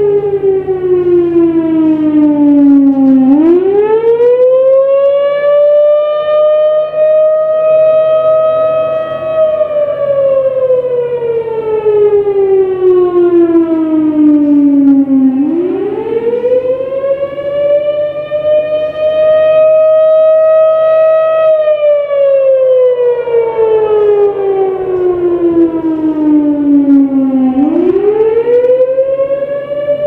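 Thunderbolt 1000 outdoor warning siren sounding a wail in a test: the pitch climbs quickly, holds for several seconds, then slides slowly back down, the cycle repeating about every 12 seconds.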